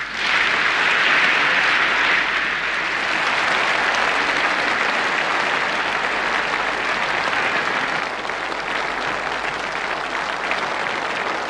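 Studio audience applauding steadily. It is loudest in the first couple of seconds and eases slightly near the end.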